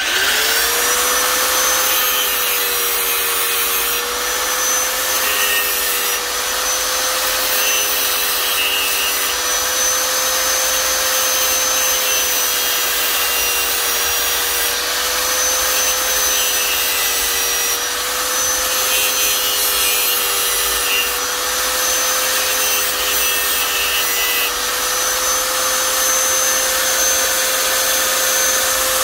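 Small handheld mini grinder starting up, its motor whine rising quickly to a steady high speed, then running continuously. A rasping grind comes and goes every couple of seconds as the tool bites into the work.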